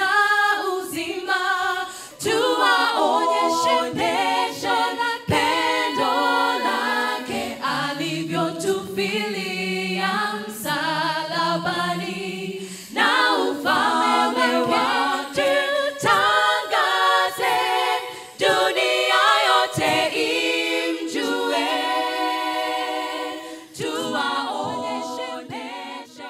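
Six-woman vocal group singing a cappella into handheld microphones, the voices blending in harmony.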